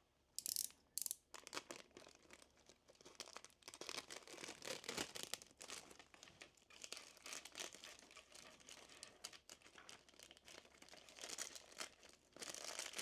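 Plastic packaging crinkling and rustling in irregular handfuls, with small clicks, as small plastic figure parts are handled; the sharpest rustles come about half a second in, a second in, and near the end.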